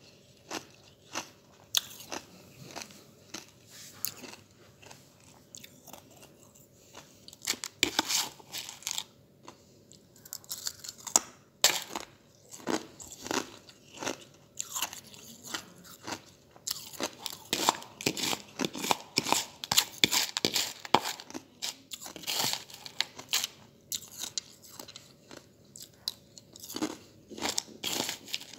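Ice chips being bitten and chewed close to the microphone: a run of irregular, sharp crunches in clusters, loudest in the second half.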